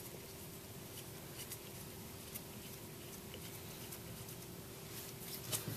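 Faint light taps and small scrapes of pump parts being handled and fitted by hand, over a steady low hum, with a louder metal clink near the end.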